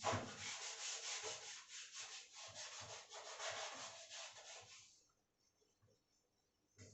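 Cloth wiping the glass of a microwave oven, with quick back-and-forth rubbing strokes that stop about five seconds in.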